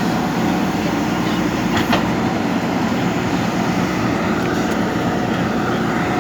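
A JCB backhoe loader's diesel engine running steadily under work, with a single metallic knock about two seconds in.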